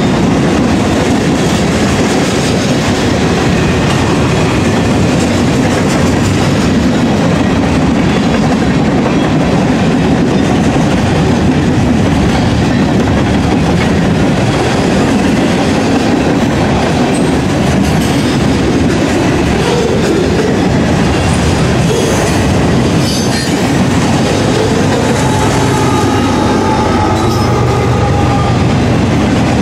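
Loaded freight cars of a mixed manifest train rolling past close by: a steady, loud rumble and clatter of steel wheels on the rails.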